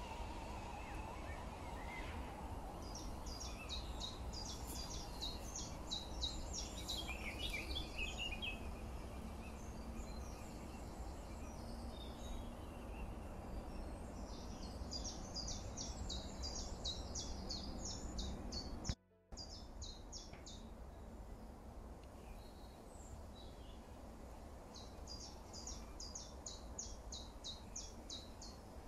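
A songbird singing three bursts of rapid, high repeated notes over a steady low rumble of outdoor background noise. The sound drops out completely for a moment about two-thirds of the way through.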